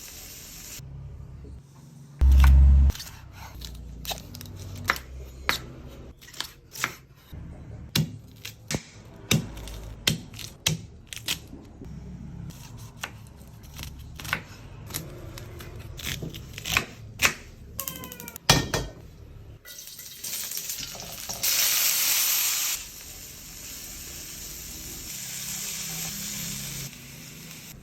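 Kitchen cooking sounds: a heavy thump, then a long run of sharp clicks and knocks of utensils, followed from about twenty seconds in by a hissing sizzle of frying, loudest for about a second.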